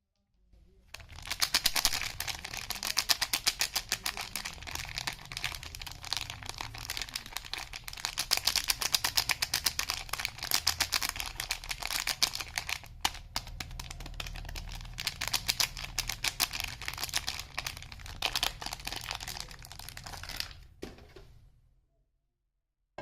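Soap packaging being crinkled and opened by hand: a long run of rapid, dense crackling with a brief pause about halfway through.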